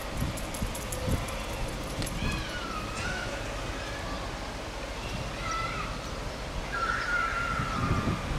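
Narrow-gauge steam locomotive moving slowly, with soft low thuds about once a second. Wavering high whistling tones come and go over it, the longest near the end.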